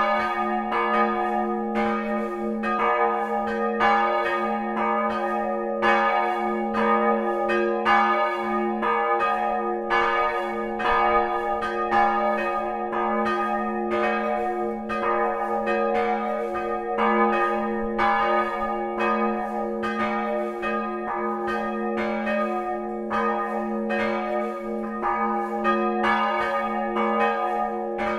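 Church bells ringing in a continuous peal, a stroke roughly every second over the sustained hum of the bells.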